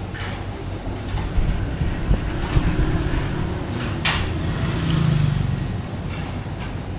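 Steady low rumble of road traffic, with one vehicle swelling past about five seconds in; a single sharp click about four seconds in.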